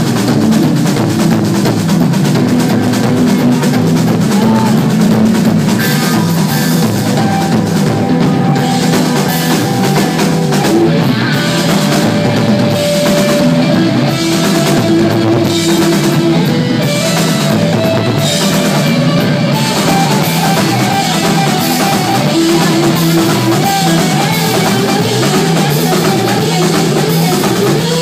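Live rock band playing loud: a drum kit with crashing cymbals under electric guitar and bass, the guitar holding long sustained notes.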